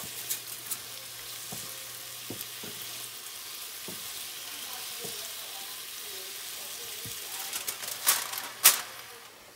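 Sliced onions and mushrooms sizzling in olive oil in a nonstick skillet while a wooden spatula stirs them, with a few light taps of the spatula on the pan. About eight seconds in, a sheet of aluminium foil crinkles loudly as it is laid over the pan.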